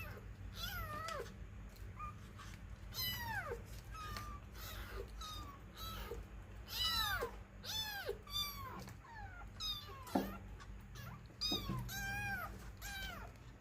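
Kitten meowing over and over, about a dozen short high-pitched mews, each falling in pitch, over a steady low hum.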